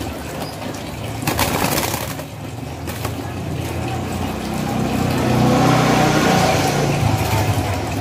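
A motor vehicle's engine running, growing louder past the middle and easing off near the end, like a vehicle passing close by. About a second and a half in, a short rustling burst.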